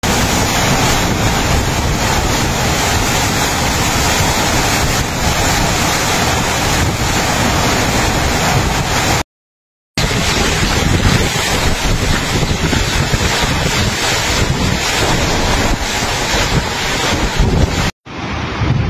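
Typhoon wind and driving rain, a loud steady rush with gusts buffeting the microphone. The sound drops out completely for under a second about nine seconds in.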